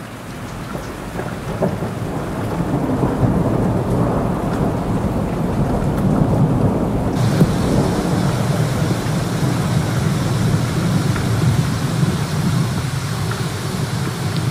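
Heavy storm rain with a steady low rumble. About seven seconds in, a brighter hiss of rain and rushing floodwater joins it.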